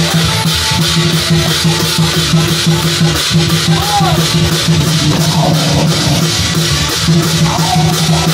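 Band music with a fast, steady drum beat and cymbals over a sustained bass line.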